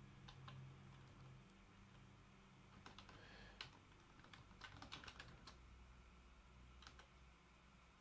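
Faint typing on a computer keyboard: scattered keystrokes, with a quick run of them about halfway through.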